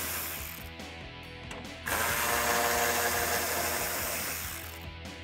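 Hand ratchet with a 10 mm socket clicking in quick runs as a bolt is backed out, over background music.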